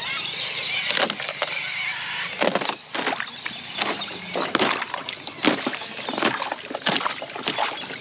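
Sheet ice on a stock water trough being broken up by hand: a quick, irregular run of sharp cracks and snaps as the ice gives way and the broken plates knock together.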